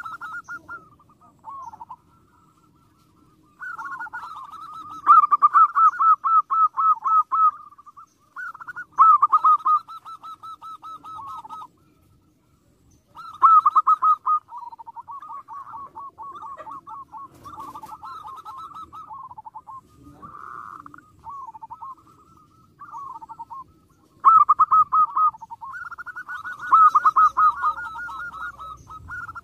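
Zebra dove (perkutut) cooing: phrases of rapid, staccato trilled notes, repeated with short pauses between them.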